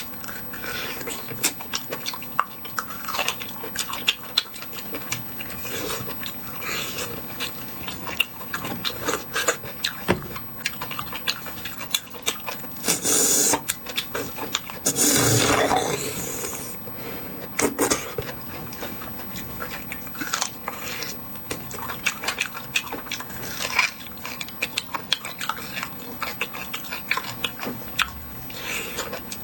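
Close-up eating of beef bone marrow: wet chewing, sucking and small clicks and scrapes on bone and dish, with two longer, louder stretches of noise near the middle.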